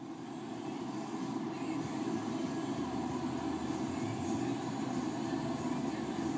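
Steady low background rumble with no distinct events, like distant engine noise.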